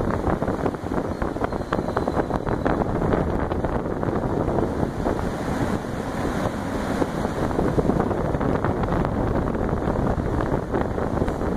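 Alugen 6K-I ST portable evaporative air cooler running, its fan blowing a steady stream of air straight at the microphone, heard mostly as rough, constant wind buffeting.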